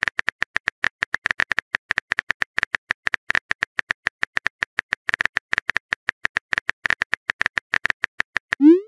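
Keyboard typing sound effect of a texting-story app: a fast run of short, even clicks as a message is typed letter by letter. Near the end comes a short rising swoop as the message is sent.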